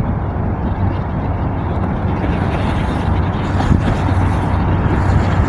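Diesel locomotives of a Union Pacific manifest freight train running with a steady low rumble that grows slightly louder; no horn sounds.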